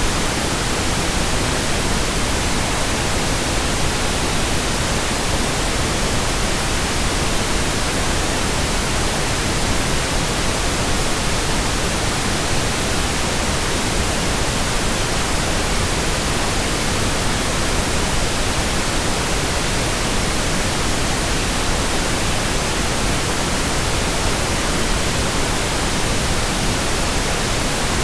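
Steady white noise: an even, unchanging hiss across the whole range from low to very high pitches, with no breaks or variation.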